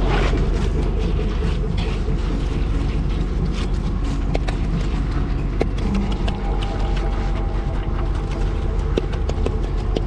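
Steady low rumble of running machinery, with scattered light clicks and rattles over it.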